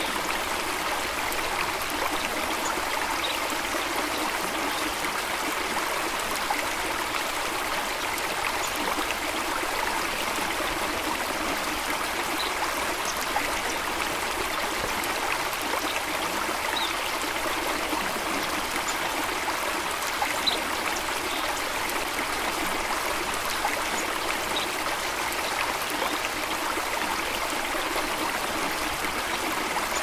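Water of a stream running and trickling, a steady, unbroken rush without deep rumble. A few faint, brief high-pitched sounds are scattered through it.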